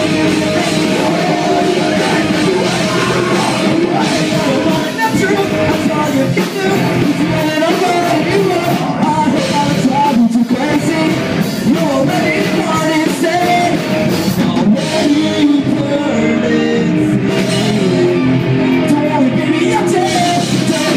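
Live rock band playing loudly, with electric guitars, bass and drums under a singer's vocals, heard through a phone's microphone.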